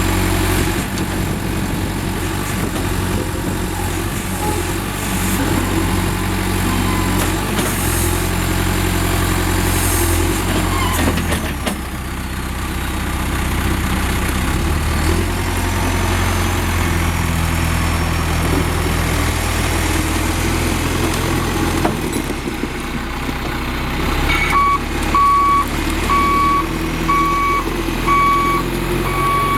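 John Deere 510C backhoe's diesel engine running, its pitch shifting now and then. Near the end a backup alarm starts beeping steadily.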